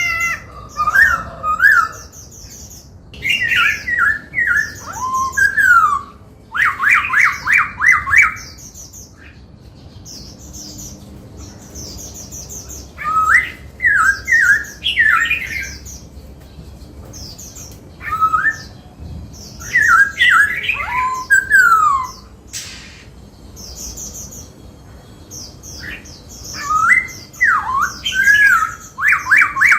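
Black-throated laughingthrush singing: loud phrases of fast, gliding whistled notes a few seconds long, with pauses between them. Some phrases are rapid runs of repeated notes.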